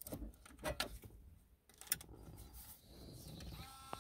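Plastic wiring-harness connectors and loose wires clicking and rustling as they are handled behind a car stereo head unit. A steady tone of several pitches starts near the end.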